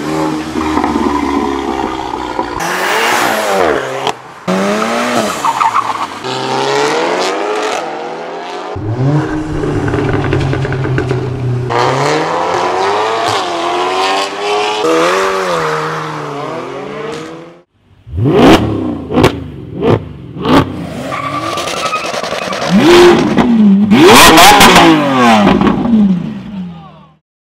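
Volkswagen Golf Mk7 R's turbocharged 2.0-litre four-cylinder engine revving and accelerating hard in several joined clips, its pitch climbing and dropping repeatedly. About two-thirds of the way through comes a quick series of short, sharp revs, followed by loud high revs that cut off near the end.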